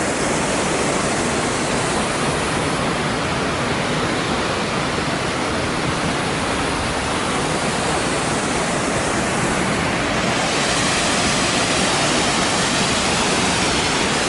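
Large waterfall: a loud, steady rush of falling water close by, with no change through the whole stretch.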